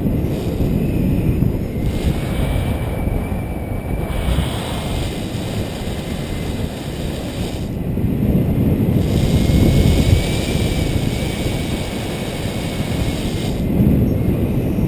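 Airflow buffeting the microphone of a camera on a paraglider in flight, a loud low rumble of wind noise that swells and eases in gusts.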